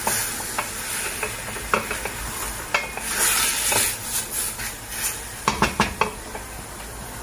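A wooden spoon stirs chopped onions and meat frying in oil in a stainless steel pot, over a steady sizzle. The spoon knocks against the pot now and then, with a quick run of four knocks about five and a half seconds in.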